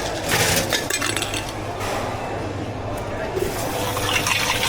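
Drink-making sounds: clinking of hard items against a cup and liquid being poured.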